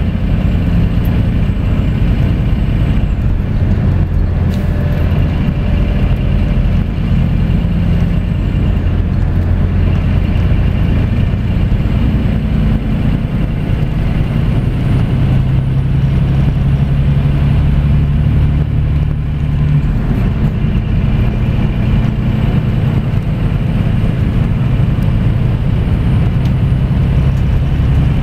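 Scania coach's diesel engine and road noise heard from a seat near the rear of the passenger cabin while the coach is under way: a steady low drone whose pitch steps up and down several times as the engine speed changes.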